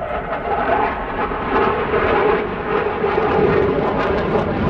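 Jet noise from a Panavia Tornado's twin Turbo-Union RB199 turbofans as the jet flies a display pass. The noise is loud and steady, with a rough crackle toward the end.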